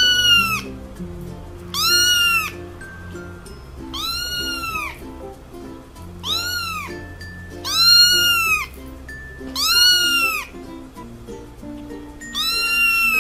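A young kitten meowing over and over in high, thin cries, about one every two seconds, each call rising and then falling in pitch. Background music plays underneath.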